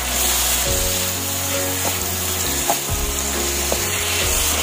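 Diced pork sizzling in butter in a frying pan, stirred with a wooden spatula that taps and scrapes against the pan a few times. Background music plays underneath.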